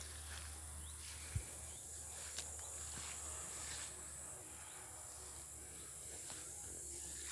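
Insects chirring steadily in the grass, a high even hiss, over a low rumble on the microphone, with one brief thump about a second and a half in.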